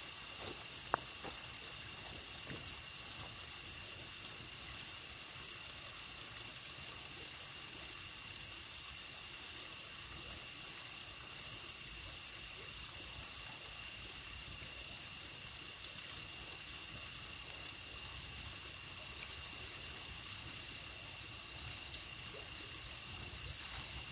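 Steady outdoor ambience: a constant hiss like flowing water, with a steady high-pitched tone over it. A few sharp clicks come in the first second or so.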